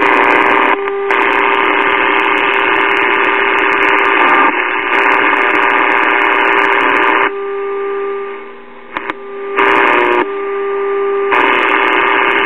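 A 1940s Emerson five-tube radio's speaker plays the signal generator's steady modulation tone, about 400 Hz, under loud hissing static. The static cuts out twice in the second half, leaving the tone on its own. The repairer traces the noise to a bad ground connection on the chassis.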